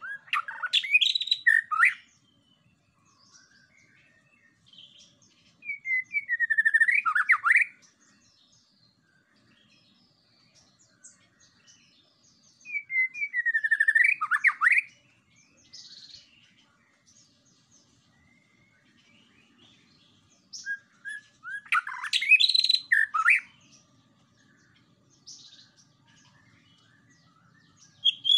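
White-rumped shama (murai batu) singing: four short song phrases several seconds apart, each a quick run of sliding notes, with a few soft notes in the gaps.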